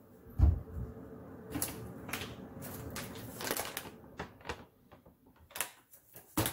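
A kitchen cupboard door opened with a thump, then the crinkling and rustling of a plastic pouch of collagen powder being handled, with a few clicks and a sharp knock near the end as it is set down on the counter.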